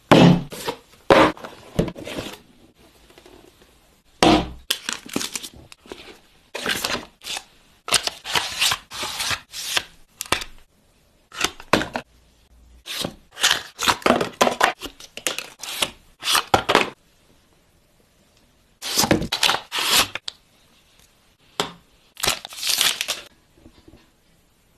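Smartphone box and its packaging being handled and opened: irregular clusters of crackling, tearing and crinkling noise, with quiet gaps between.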